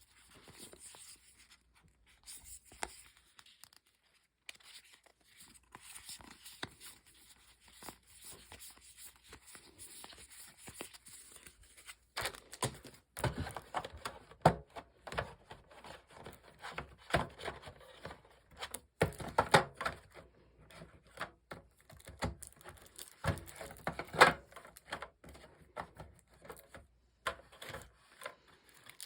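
Plastic wrap and paper packaging crinkling and rustling as game components are unpacked by hand: faint scattered rustles at first, then from about twelve seconds in a busy run of short, sharp crackles.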